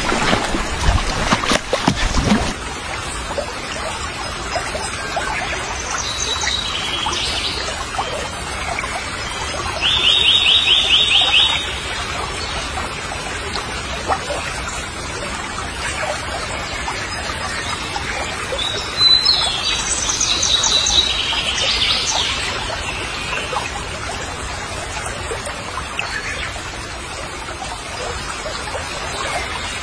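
Splashing in the first couple of seconds, then a steady background wash of water with small birds calling. One gives a fast, even trill of about a second and a half around ten seconds in, and more high calls come around twenty seconds in.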